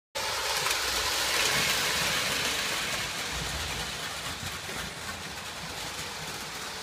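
Prewar Lionel O-gauge streamlined steam toy train running on tinplate three-rail track, giving a steady mechanical running noise of motor and wheels on the rails. It starts suddenly and eases off slightly about halfway through.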